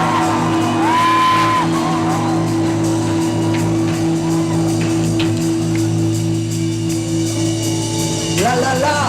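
A rock band's closing chord held and ringing out in a live hall, with a whoop about a second in and shouts near the end.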